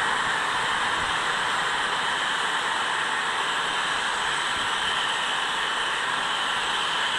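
HO-scale model coal hopper cars rolling along the track, a steady, even rolling hiss.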